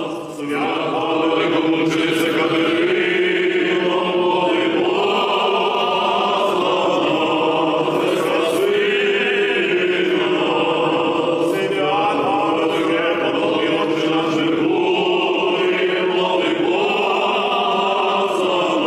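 A choir singing Orthodox liturgical chant, with slow, held chords that change every second or two.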